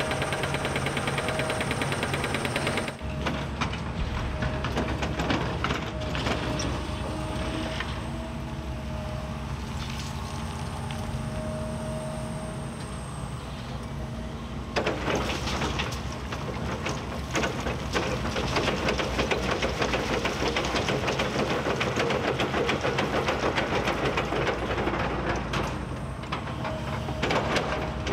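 Kobelco SK260-10 crawler excavator working: its diesel engine and hydraulics run with a steady whine, under a clatter and rumble of rock and metal, with several sharp clanks in the second half.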